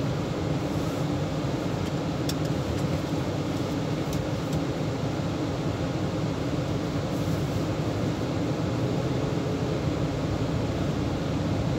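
Steady cabin hum inside a Chevrolet Tahoe with its V8 engine running, with a few faint clicks about two and four seconds in.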